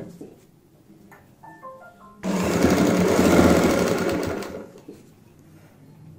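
Sewing machine stitching cord down onto padded fabric in one run of about two and a half seconds, starting about two seconds in and tailing off as it stops. A sharp click comes right at the start.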